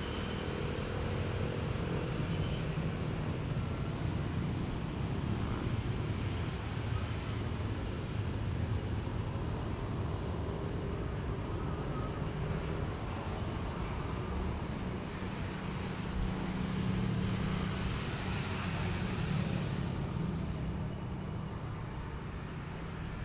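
Steady low engine rumble, swelling slightly about two thirds of the way through.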